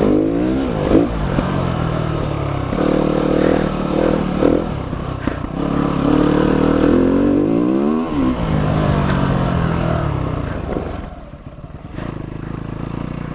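Single-cylinder off-road motorcycle engine being ridden over a dirt trail, its revs rising and falling repeatedly with the throttle. The level drops as the throttle closes about eleven seconds in. A few sharp knocks and clatters come through from the rough ground.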